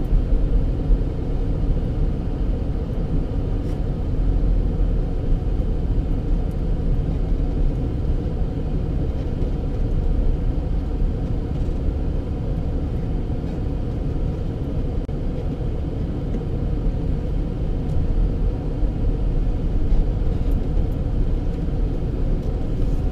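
Car driving along, a steady rumble of engine and tyre noise heard from inside the cabin.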